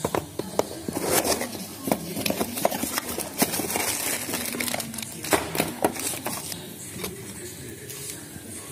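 Packaging being handled: a cardboard box opened and plastic-bagged parts pulled out, crinkling plastic and scraping cardboard with many scattered clicks, busiest in the first six seconds.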